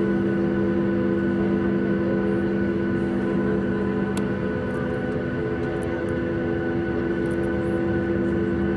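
Cabin drone inside a Boeing 737 MAX 8 taxiing with its CFM LEAP-1B engines at idle: a steady hum carrying several constant tones that hold their pitch throughout.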